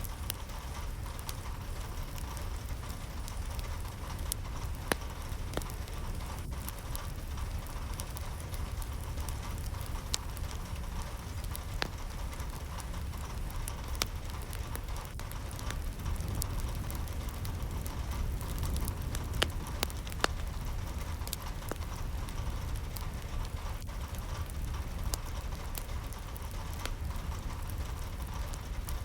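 Steady rain falling, with a low rumble underneath and scattered sharp drops and taps.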